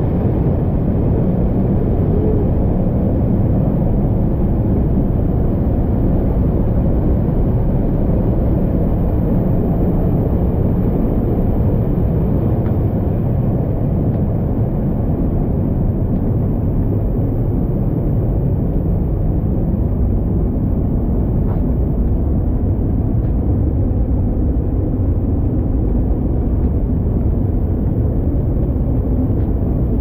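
Steady, deep roar of a large waterfall pouring over rock close by.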